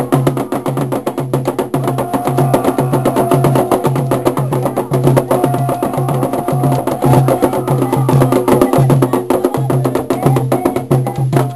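Afro-Brazilian devotional music for Xangô: a low drum beating about twice a second under dense, fast clicking percussion, with voices singing a chant.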